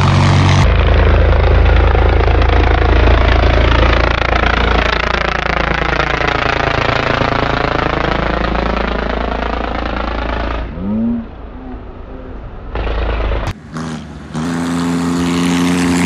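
John Deere 5050D tractor's three-cylinder diesel engine running loud at high speed as it drives close past, the sound sweeping as it goes by for about ten seconds. Then the sound cuts off abruptly, and shorter stretches of tractor engine running follow.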